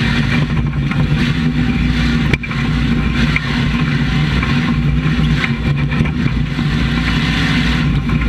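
GMC 2500HD race truck's engine running at a steady pitch as the truck drives off-road, with road and chassis noise; a short click and dip about two and a half seconds in.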